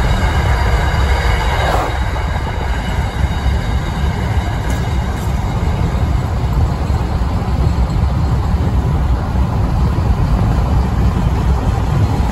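Freight train led by a Pacific National NR class GE diesel locomotive rolling past with a steady heavy rumble of engine and wagons. A faint high-pitched squeal fades out about two seconds in.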